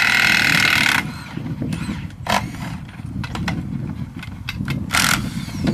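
Pit-crew power tool, most likely an impact wrench on the dirt bike's wheel axles, running in a loud burst of about a second at the start and a shorter one near the end. Several sharp clanks of tools and parts come in between, over a steady low rumble.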